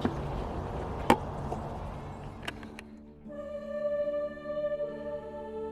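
Steady background noise with a few sharp clicks, then from about three seconds in, background music of slow, held tones.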